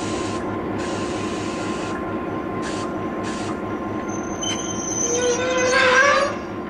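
Locomotive running with a steady noisy background, then, about five seconds in, a short blast of a Leslie S5T five-chime air horn: a chord of several tones that rises slightly in pitch, swells to its loudest, and cuts off sharply.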